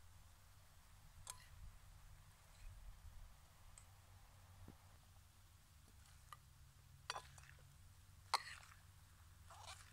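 Faint taps of a metal spoon against a ceramic bowl as a shredded cabbage salad is tossed: about five short clicks scattered among a soft rustle, the sharpest about eight seconds in.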